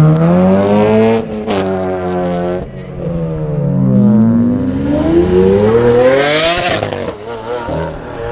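Car engines revving hard as cars accelerate away: one engine climbs in pitch, drops at a gear change about a second in and holds, then a long rising rev builds to a loud peak and cuts off sharply about six and a half seconds in, while another engine note falls away in the middle.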